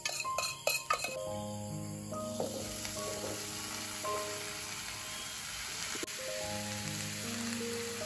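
Food sizzling as it fries in hot oil, the sizzle setting in about a second in after a few sharp clinks. Soft background music plays throughout.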